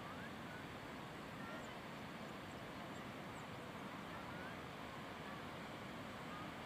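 Steady outdoor rushing noise with faint, brief chirps here and there.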